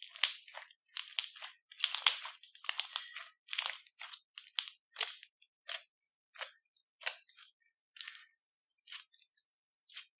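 Crunchy slime being worked, giving irregular crackling and popping crunches, dense at first and thinning out to scattered pops in the second half.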